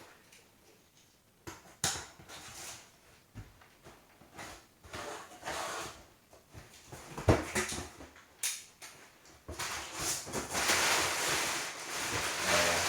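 LEGO set boxes being handled and moved: scattered light knocks and taps, a sharper knock about seven seconds in, then a steady rustle from about nine and a half seconds on.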